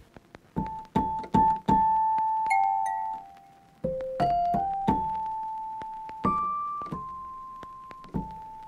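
Background music: a slow piano melody of single notes, each struck and left to ring and fade before the next.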